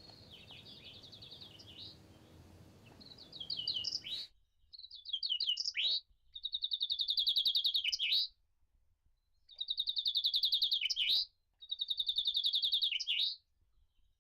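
Caged chaffinch singing: repeated songs of about two seconds, each a fast descending trill ending in a flourish. The first few seconds are fainter over a low hum, then four loud songs follow with short pauses between them.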